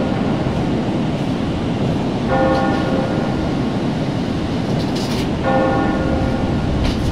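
A bell tolls twice, about three seconds apart, over a steady low rumble: a suspense sound effect.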